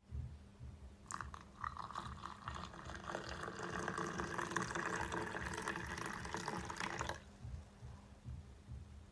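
Water poured in a thin stream into a glass mug of drink powder, filling it. The pour starts about a second in and stops abruptly about seven seconds in.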